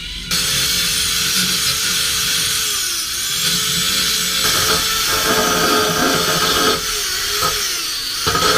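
Electric power tool starting up and working steel bodywork, cleaning back rust and paint. A loud, steady whine over a harsh rasp, its pitch sagging under load about three seconds in and again near the end.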